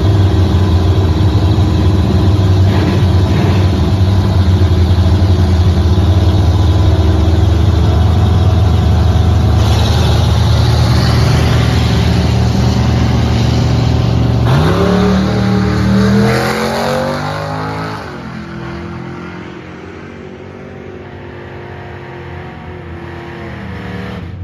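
Drag-race cars, an old pickup truck and a Mustang, idling loudly at the starting line with a heavy engine rumble. About 14 seconds in, one launches: its engine revs up in rising pitch, shifts once and climbs again, then fades as the cars run away down the strip.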